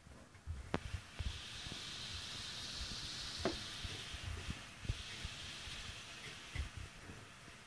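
Hands pressing and turning chicken pieces in a coating of breadcrumbs and grated cheese: a dry rustling hiss of the crumbs, strongest in the first half, with a few soft knocks and handling thumps.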